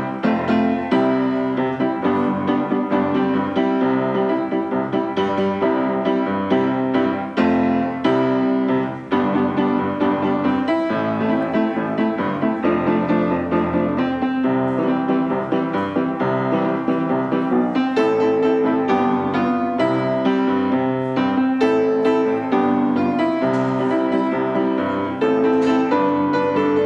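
Piano music, a steady flow of notes with no pauses.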